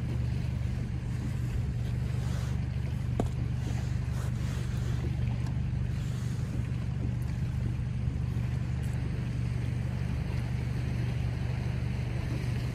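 Boat's outboard motor running steadily at slow trolling speed, a constant low hum, with wind and water noise over it.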